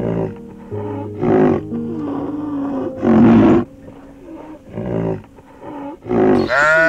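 A rhinoceros gives four short, rough calls, one every one and a half to two seconds, over background music with sustained tones. Near the end a sheep's bleat begins.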